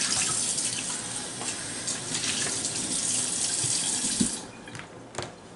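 Water running from a kitchen faucet into a cup in a stainless steel sink, shut off about four seconds in, followed by a couple of light knocks.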